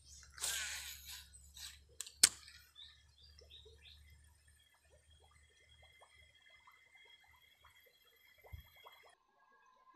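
A spinning rod and reel being cast and worked: a short rush of noise, two sharp clicks, then faint irregular ticking as line is wound in. A steady high-pitched whine runs underneath and cuts off near the end.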